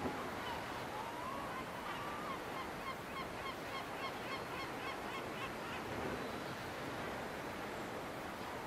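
Gulls calling: wavering cries in the first couple of seconds, then a fast run of short, high notes, about five a second, through the middle, over a steady background hiss.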